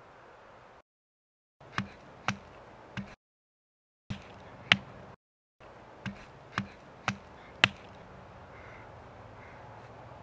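A series of about eight sharp, short knocks at irregular intervals over a faint outdoor hiss, with the sound cutting to dead silence three times in between.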